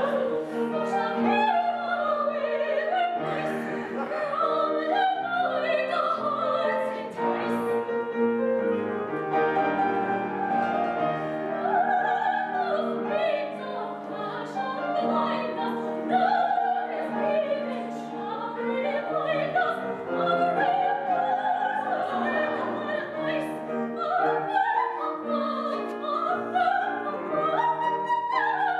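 A woman singing opera with wide vibrato, accompanied by piano.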